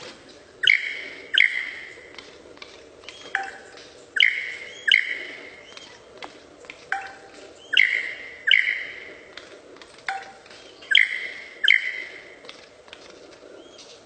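A bird calling in a repeated phrase about every three seconds: a short lower note, then two loud, sharp-onset calls. The phrase comes four times.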